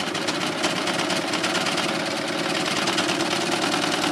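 Success Lucie four-thread overlocker running steadily at speed, stitching along a fabric edge with a fast, even rattle.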